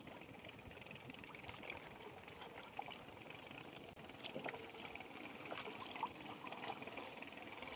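Faint water trickling and lapping around a wooden canoe, with scattered small drips and splashes, as the wet line of a cast net is hauled in by hand.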